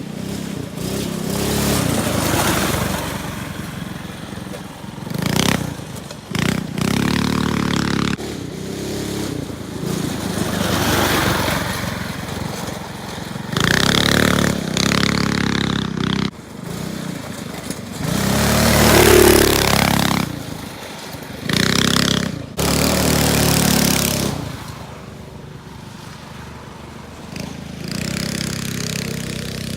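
Small go-kart engine running hard, revving up under full throttle and dropping back again and again as the throttle comes on and off.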